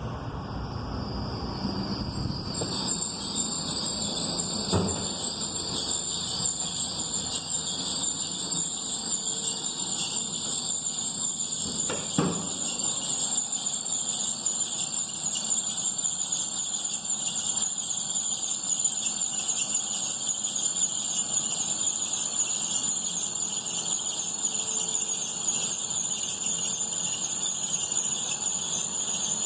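Poly-V accessory belt on a 2011 Astra engine squealing: a steady high-pitched squeal comes in about two seconds in and holds over the running engine. The squeal comes with the air conditioning switched on and persists with a new belt; the owner has ruled out the crankshaft pulley and suspects the belt tensioner.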